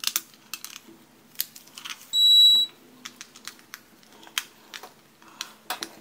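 Scattered light clicks and taps of a plastic epilator housing and its wires being handled and pressed into place. A single loud, high electronic beep lasts about half a second, a couple of seconds in.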